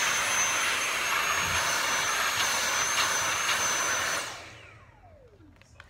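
Cordless Dyson handheld vacuum running with a steady high whine over the rush of its airflow, then switched off about four seconds in, its motor whine falling in pitch as it spins down.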